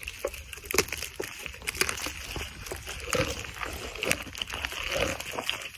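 A camel chewing a mouthful of fresh thorny branches close up: irregular crunching and clicking as the twigs break between its teeth.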